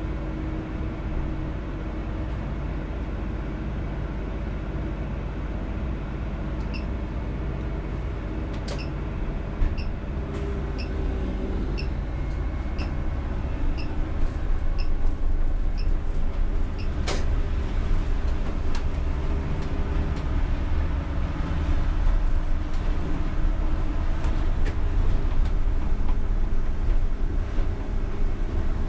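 Cab sound of a UTTZ-6241.01 (MAZ-203T) trolleybus pulling away from a stop. A steady electrical hum comes from the onboard equipment, and a light regular ticking, the turn indicator, runs for several seconds. Then the traction and road rumble grows louder as the trolleybus gets under way, with one sharp click about halfway through.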